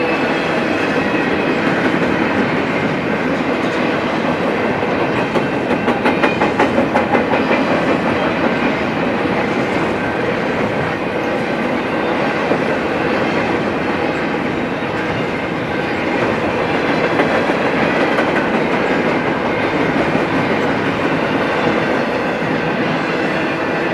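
Double-stack intermodal freight train passing close by, its container-laden well cars giving a steady rumble and rattle on the rails. Wheels clack over rail joints, with a quick run of clacks about six seconds in.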